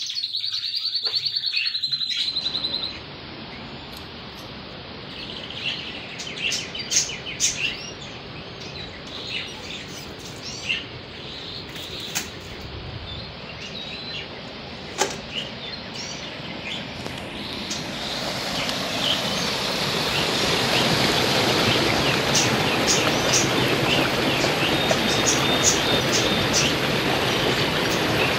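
Small birds chirping over the steady rush of a stream. A high rapid trill at the start stops abruptly after about two seconds, and from about eighteen seconds in the rush of water grows louder and stays loud as the stream churns white over a cascade.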